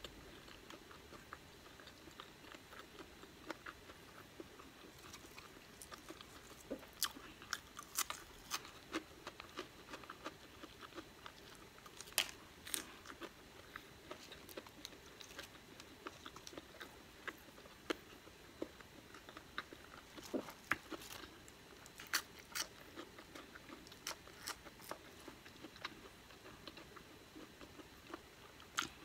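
Close-up eating sounds of a person chewing a burger and fries: soft chewing and mouth sounds broken by many sharp, irregular clicks and smacks.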